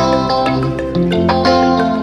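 Background music: held melodic notes over a bass line that shifts about a second in, with a deep thump at the start.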